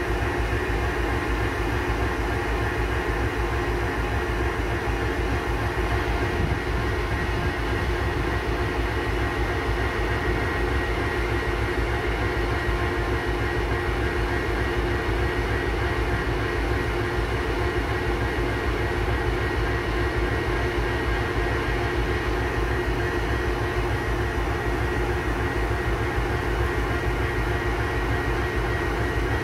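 A steady mechanical drone with a constant low rumble and two held tones, unchanging in pitch and level throughout.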